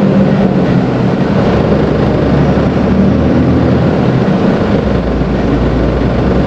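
Mercedes-Benz Atego truck's diesel engine running under way, with road noise. The engine note shifts lower about four and a half seconds in.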